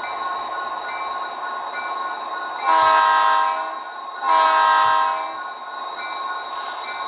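A model diesel locomotive's DCC sound decoder sounding two horn blasts, each about a second long with a short gap between, over the steady idle of its simulated diesel engine.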